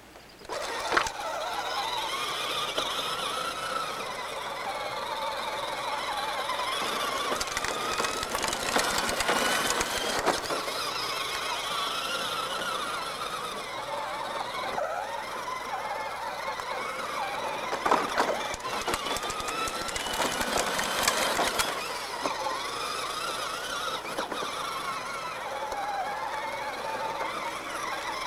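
Bigfoot Power Wheels ride-on toy truck's electric drive motors and gearbox whining as it drives, the pitch rising and falling over and over as its speed changes, with a few knocks.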